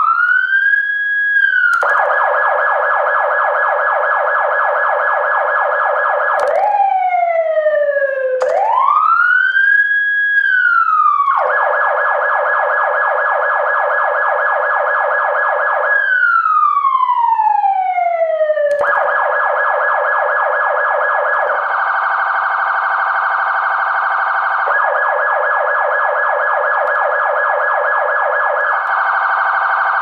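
Electronic emergency-vehicle siren switching between its tones. Long rising and falling wail sweeps alternate with stretches of a fast, rapidly repeating yelp, changing several times.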